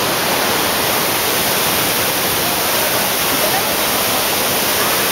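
Steady rush of water flowing over the rocks of a forest stream.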